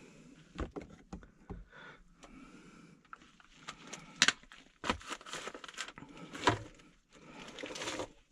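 Handling noises at an open sewer ejector pump basin: scattered knocks, clicks and scraping as cords and float switches are moved about, with a sharp knock about four seconds in.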